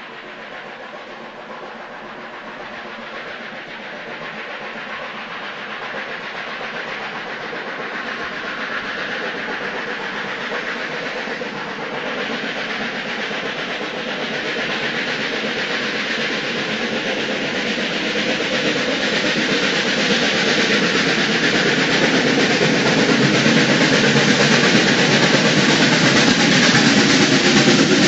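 Steam locomotive working hard as it climbs a grade from a standing start, growing steadily louder as it approaches.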